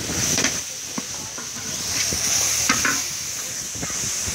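Food sizzling in a hot pan with a steady hiss while a utensil stirs it, scraping and knocking against the pan several times.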